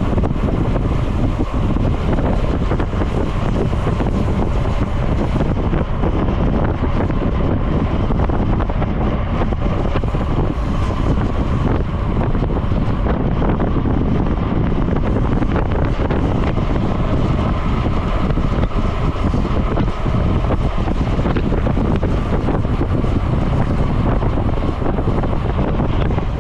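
Wind buffeting the microphone of a camera riding along on a road bicycle at speed, a loud, steady rushing.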